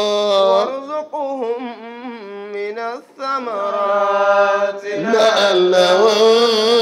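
A man's voice chanting unaccompanied in long, drawn-out notes that bend and waver, with a short break for breath about three seconds in.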